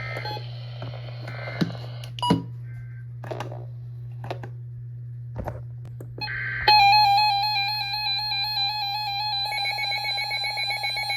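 Emergency Alert System broadcast audio between warnings: a low steady hum with scattered clicks and crackles, then a short data burst. About six and a half seconds in, a loud, steady two-tone attention signal starts, announcing the next warning.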